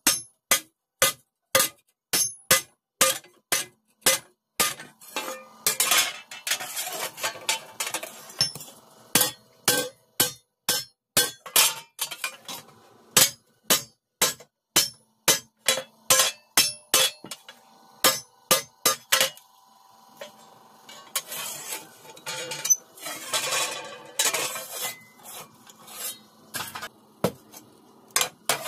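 Hammer blows on a thin iron sheet laid on a block, about two a second, each ringing briefly. Two stretches of quicker, irregular metal clattering break in, once after about six seconds and again after about twenty.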